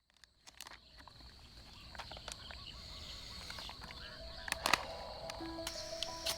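Outdoor ambience fading in: a steady high-pitched insect drone with scattered clicks and ticks. Soft background music with held notes comes in about two-thirds of the way through.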